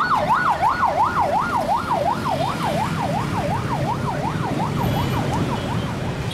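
Emergency vehicle siren in a fast up-and-down yelp, about three sweeps a second, fading away near the end, over the rumble of street traffic.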